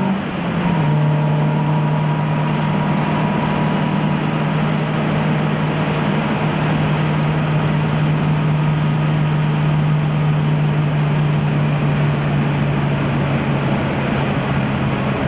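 In-car sound of a 1971 Alfa Romeo Giulia's twin-cam four-cylinder engine. It takes an upshift about half a second in, with a brief dip in loudness and a step down in pitch, then runs at steady revs.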